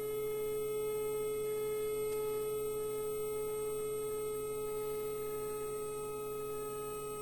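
Steady pure test tone, such as a frequency generator sounds through a speaker for a resonance experiment, holding one pitch and easing slightly softer towards the end.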